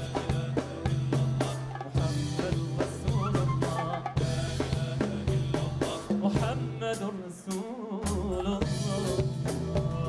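Live band music with no singing: drum kit and hand-drum hits keep a steady beat over sustained low notes, and the drums briefly drop away about seven and a half seconds in.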